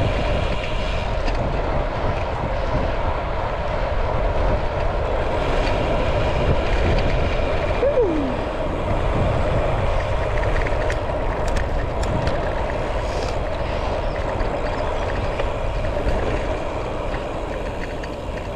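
Wind rushing over a handlebar-mounted action camera's microphone while a road bike rolls along tarmac at speed, its tyres running on the road surface. It makes a steady rumble throughout.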